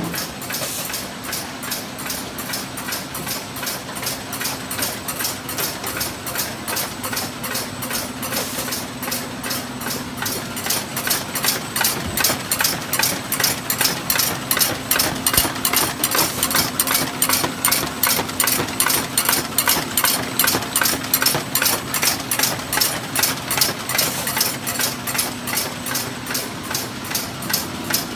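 Folder gluer machine running while folding and gluing short boxes: an even, fast clicking of about three beats a second over a steady hum. It grows louder about halfway through.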